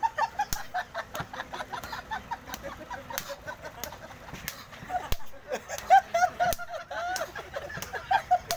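Open-handed slaps landing on a bare shaved head, sharp and irregular, the loudest about six seconds in. Short high calls rising and falling come between them.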